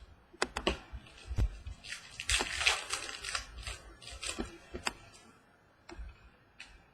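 Hands working trading card packs and cards: a few sharp clicks and taps, then about a second and a half of crinkling, tearing foil wrapper, then more light taps as the cards are handled.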